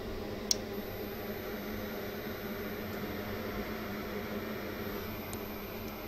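SMD preheater running with a steady fan hum and a whoosh of air. A single sharp click comes about half a second in.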